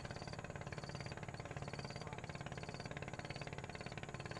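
A small engine running steadily at idle, a rapid even pulse over a low hum. A short high chirp repeats about every half second above it.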